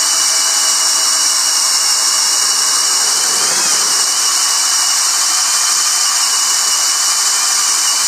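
Hart 20-volt brushless cordless drill in low gear (speed 1) boring a 1 1/8-inch speed bit through two pressure-treated 2x4s: the motor and gearbox run steadily under load with a steady high whine, driving through the wood without stalling.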